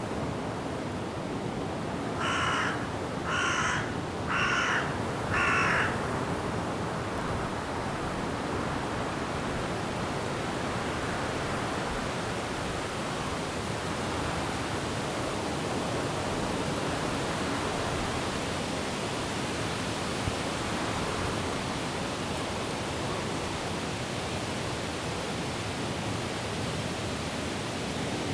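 Steady rush of wind and rain through forest trees, with a crow cawing four times, about a second apart, a couple of seconds in.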